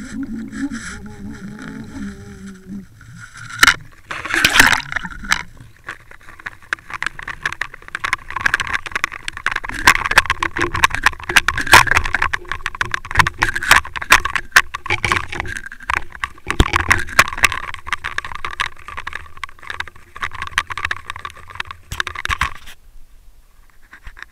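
Water rushing and splashing over a Water Wolf underwater fishing camera as it is hauled up to the surface on the line. Dense knocks and scrapes of the camera housing run through it, and it stops abruptly near the end.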